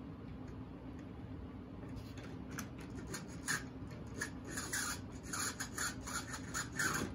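Irregular short scrapes and rubs as a Tyco HO steam locomotive and its Power-Torque tender are pushed and rocked by hand along the rails. They start about two seconds in, over a steady low hum. The tender drive is bone dry and barely turns.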